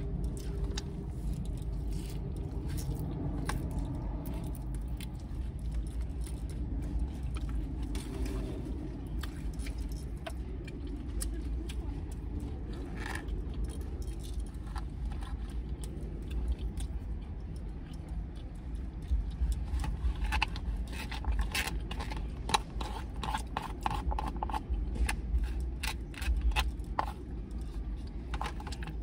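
Eating noises inside a parked car: scattered clicks, scrapes and crunches of a fork in a plastic salad container and of chewing, busier toward the end, over a steady low rumble.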